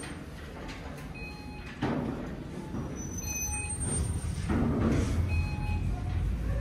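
Footsteps onto a moving escalator, with a low machine rumble that grows from about four seconds in. Over it, a short, high electronic beep repeats every second or two.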